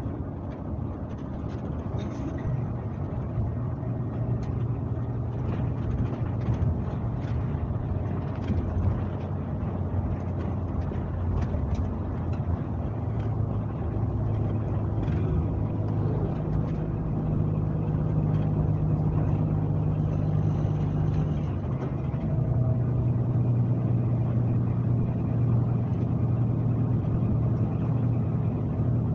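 Scania K370C coach engine running under way, heard from on board the bus, with tyre and road noise. Its low note climbs about halfway through and drops back a few seconds later, then holds steady. Light rattles are scattered through the first half.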